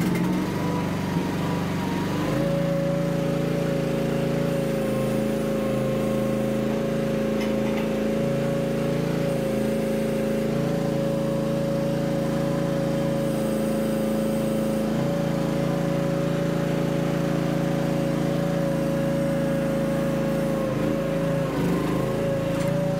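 Mini excavator's engine running steadily. About two seconds in it picks up and a steady high whine joins it, holding until a brief wobble near the end.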